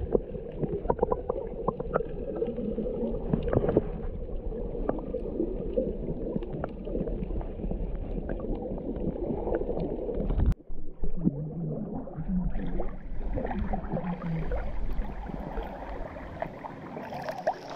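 Muffled underwater sound picked up by an action camera below the surface: a low rumble of moving water with gurgling and crackling bubble clicks. Near the end the camera comes up into the air and the water sound turns brighter with splashing.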